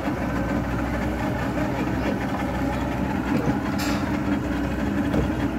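A boat's engine running steadily, a constant low drone.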